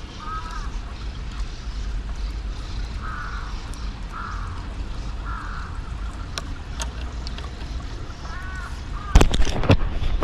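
Crows cawing repeatedly over a steady low rumble, then a quick cluster of loud knocks and clatter about nine seconds in.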